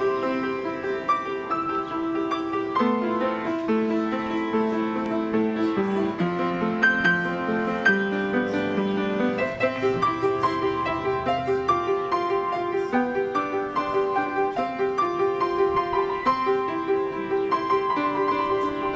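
Upright piano played with both hands: a melody over held chords and a moving bass line, going on without a break.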